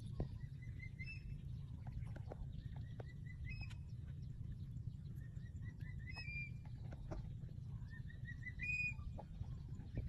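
Young eagle calling over its prey: a quick run of about five short rising chirps ending on a higher note, repeated four times about every two and a half seconds, over a steady low rumble.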